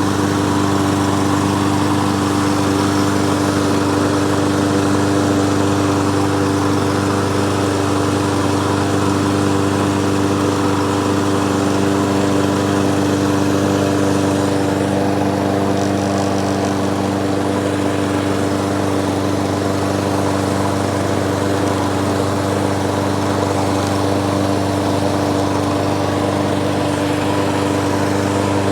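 Briggs and Stratton lawnmower engine running steadily, its pitch holding even throughout.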